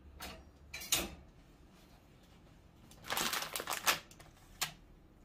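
Kitchen utensils and packaging being handled on a countertop and cutting board: a sharp knock about a second in, a cluster of crinkly, scraping rustles about three seconds in, then a single sharp click.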